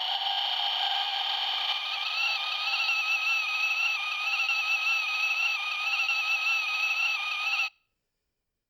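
Toy kettle whistling: one steady high whistle with overtones that starts to warble after about two seconds and cuts off suddenly near the end.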